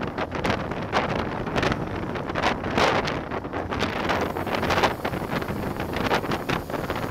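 Wind buffeting the microphone of a bicycle-mounted camera moving at about 40 km/h on a descent, rushing in uneven gusts.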